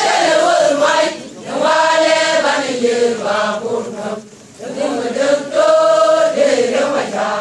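A group of voices chanting together in long held phrases, with short breaks between phrases.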